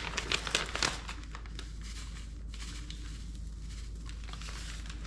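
A clear plastic food bag crinkling and rustling as it is opened and held while garlic salt is poured in from a small spice packet. The crackling is sharpest in the first second, then eases to a soft rustle.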